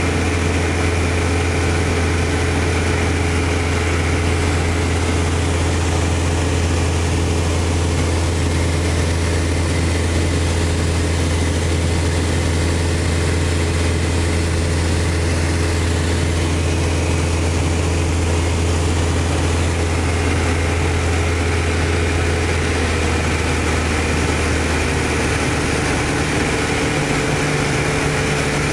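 Small single-engine aircraft's piston engine and propeller droning steadily, heard from inside the cockpit. The engine note shifts slightly near the end.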